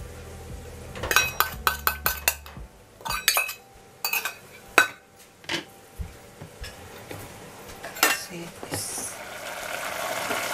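Metal spoon clinking and scraping against a small stainless steel bowl as dressing is spooned out, a run of sharp separate clinks and knocks. Near the end a pot of braised pork starts to be heard simmering, a rising hiss.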